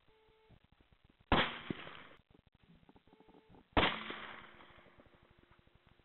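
Two .223 rifle shots from a Tikka T3, about two and a half seconds apart, each a sharp crack that fades away over about a second.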